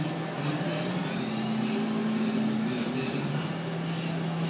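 Haas CNC lathe running: a high motor whine rises in pitch over the first two seconds or so and then holds steady, the spindle coming up to speed, over a low machine hum.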